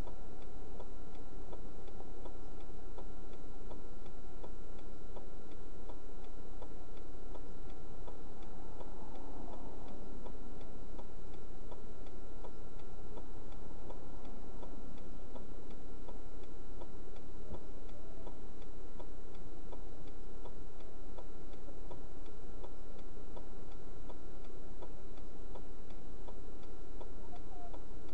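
Steady, evenly spaced ticking inside a stopped car, over a constant electrical hum.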